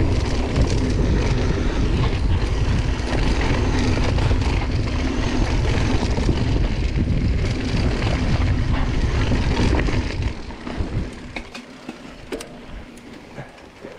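Wind rushing over the camera microphone, mixed with the bike rolling and rattling over a dirt trail on a fast mountain-bike descent. About ten seconds in it turns much quieter as the bike slows, leaving scattered clicks and rattles.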